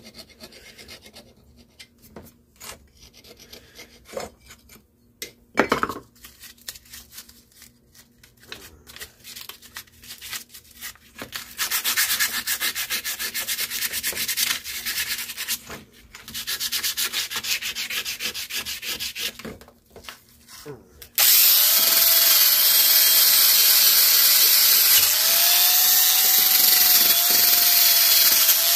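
Hand scraping at an old lawnmower engine part with a screwdriver: scattered scrapes and clicks, then two stretches of rapid, steady scraping of a few seconds each. About 21 seconds in, an electric drill fitted with a small wheel starts suddenly and runs steadily and much louder, its pitch dipping briefly a few seconds later.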